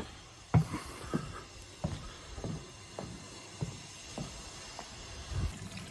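Footsteps at a steady walking pace, about nine short knocks evenly spaced under two a second.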